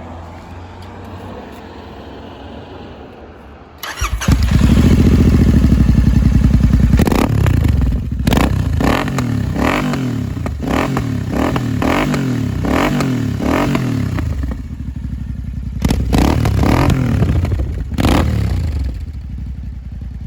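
Royal Enfield GT 650's 648 cc parallel-twin engine starting up about four seconds in, then revved in a long run of quick throttle blips, the revs falling back after each, with sharp cracks along the way, before settling toward idle near the end. It runs through Offtrail Moto Hyperstroke slip-on exhausts with their dB killers fitted.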